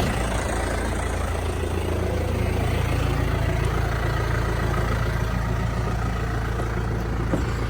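Tractor diesel engine idling steadily with a low, even hum while it powers the baler's hydraulics to hold the tailgate up.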